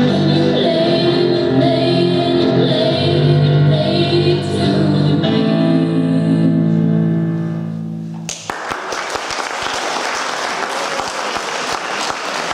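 Female vocal duo singing over an electric keyboard and electric bass guitar, ending the song on a long held chord. The music stops abruptly about eight seconds in, and the audience applauds.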